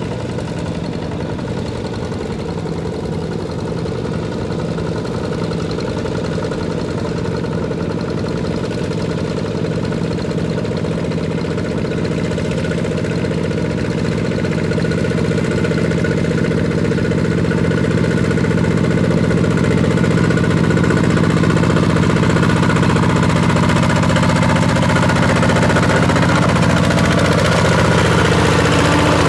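Two-wheel walking tractor's single-cylinder diesel engine running steadily under load while pulling a plow through a wet paddy field, growing louder toward the end as it nears.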